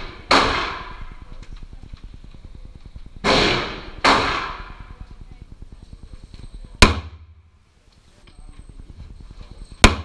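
Gunshots echoing in an indoor shooting range: five irregularly spaced shots, the first three with long ringing tails. The last two, near the end, are the sharpest and loudest: the 9mm Smith & Wesson M&P Shield pistol being fired.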